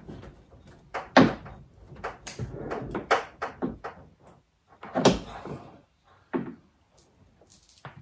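Clunks and clicks of a 2018 Toyota RAV4's power liftgate being pushed further open by hand while a new power strut's end is snapped onto its mount. It is a string of sharp knocks, loudest about a second in and again about five seconds in.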